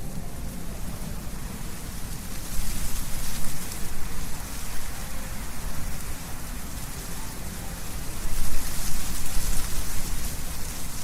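Wind blowing through trees with leaves rustling, over a steady low wind rumble. It swells in two stronger gusts, about two and a half seconds in and again about eight seconds in.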